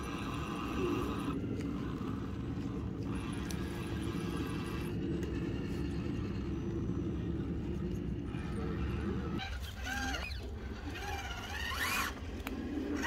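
Electric motor and gearbox of an RC crawler whining steadily, cutting out briefly a few times. In the last few seconds the whine sweeps up and down in pitch in short squeals.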